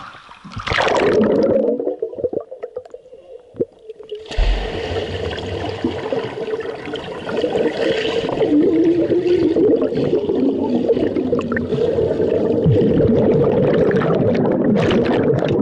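Muffled rushing and bubbling of swimming-pool water heard through a submerged camera among swimmers. There is a splash about a second in, a quieter spell, then louder, steady churning from about four seconds in.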